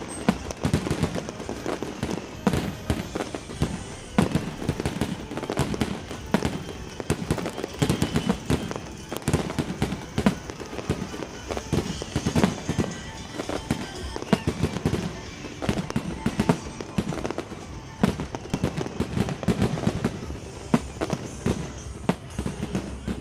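Fireworks going off in a dense display, many sharp bangs and crackles several times a second throughout, with music playing underneath.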